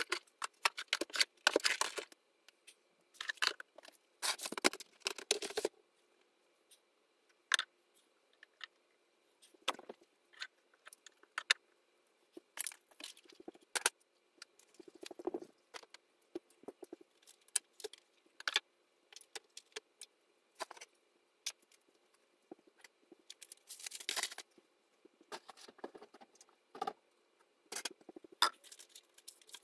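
Sped-up clatter and rustling of tidying: plastic baskets and small items being handled and set on shelves, heard as scattered quick clicks and short bursts of rustle, busiest near the start and again a little before the end.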